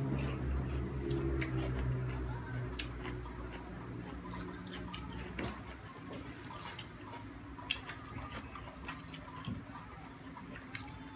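A person chewing and smacking their lips while eating, giving irregular sharp wet clicks. A low steady hum sits under the first half and fades about six seconds in.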